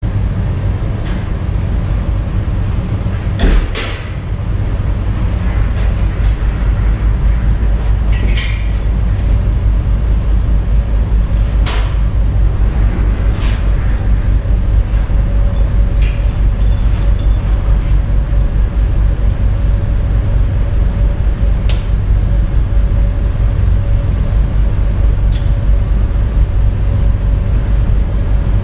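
Volvo L50 wheel loader's diesel engine idling with a steady low, pulsing rumble while the large workshop door is opened, with a couple of sharp clunks about three and a half seconds in and lighter knocks afterwards.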